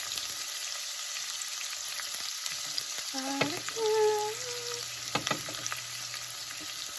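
Onion and chopped garlic sizzling steadily in hot vegetable oil in a pot, with a few sharp knocks of a utensil against the pot as it is stirred. A short pitched tone sounds about three to four seconds in, the loudest moment.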